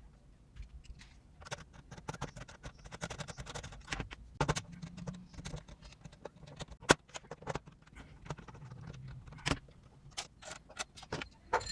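Irregular metallic clicks, taps and clinks of small metal parts being handled against a steel tool box, with one sharper knock about two-thirds of the way through.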